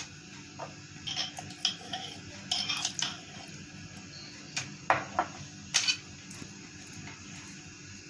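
A table knife clinking and scraping against a glass jam jar as jam is scooped out: a scattering of sharp clinks and short scrapes.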